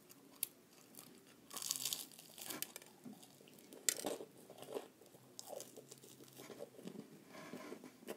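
A person biting and chewing a fried chicken leg piece: scattered short crunches and clicks of the dry, crunchy crust and meat being bitten and chewed.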